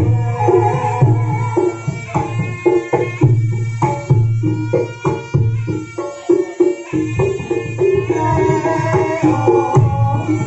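Reog troupe's music, loud through a PA sound system: kendang hand drums beating a steady rhythm under held pitched melody instruments.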